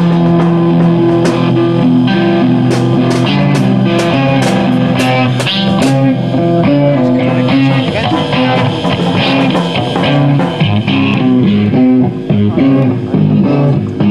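Noise rock music: guitar over drums, with held notes and steady cymbal strikes.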